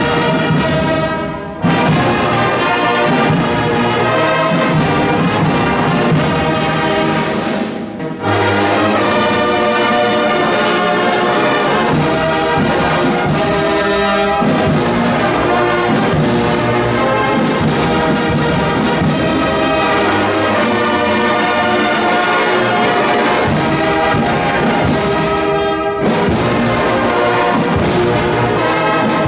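Brass band playing a hymn in long held phrases, with a short break between phrases about a second and a half in and another near eight seconds.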